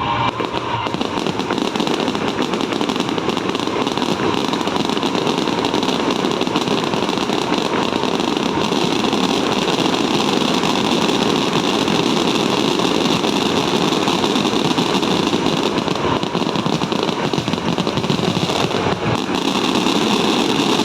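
Fireworks going off in a dense, continuous barrage: rapid crackling pops running together without a break.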